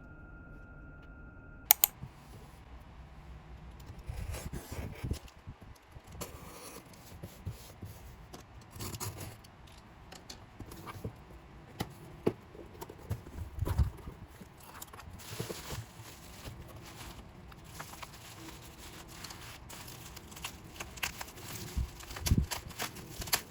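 Unboxing a K-pop album by hand: irregular crinkling, tearing, scraping and clicking of the album's packaging and cards, with a sharp click about two seconds in.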